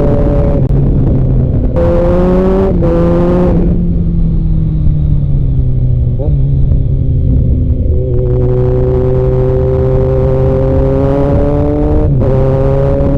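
Kawasaki Z900's inline-four engine under way, its pitch stepping several times in quick succession in the first few seconds as it is shifted, then falling slowly as it eases off. It then climbs steadily for a few seconds and steps again near the end.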